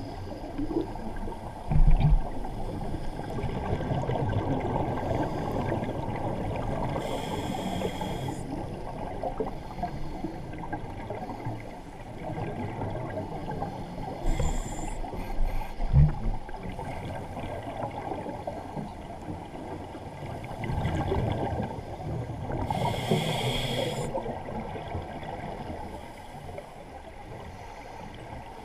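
Muffled underwater noise picked up by a diver's camera, with the diver's exhaled scuba bubbles rushing out twice, about seven seconds in and again about twenty-two seconds in. There are dull knocks about two seconds in and again about sixteen seconds in.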